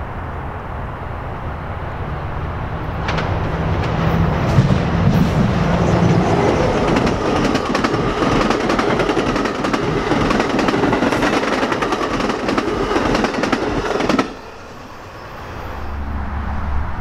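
Train passing close by, its wheels clattering over the rails. It grows louder over the first few seconds and cuts off abruptly about fourteen seconds in.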